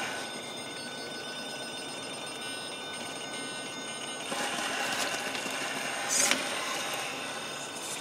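Radio-controlled rock crawler creeping over rock: its electric motor and drivetrain give a steady, thin high-pitched whine. A louder spell of scraping and grinding comes from about four seconds in, with a short sharp hiss just past six seconds.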